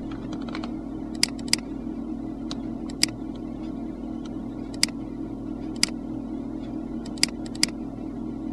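Computer mouse clicking: about eight sharp, separate clicks, a few in quick pairs, over a steady low hum.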